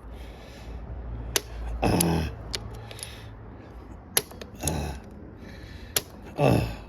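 Old vice grips being clamped onto a rounded, seized screw and twisted: a few sharp metal clicks and short scraping rasps as the jaws bite and slip.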